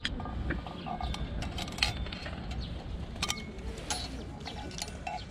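Birds chirping, with scattered short clicks over a steady low rumble.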